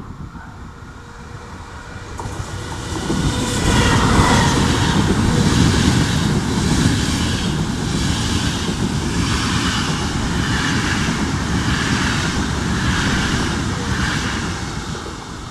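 Intercity passenger train running through the station: a rising rush as it approaches, then a loud steady rumble of wheels on rail with a pulse about once a second as the coaches go by, dying away near the end.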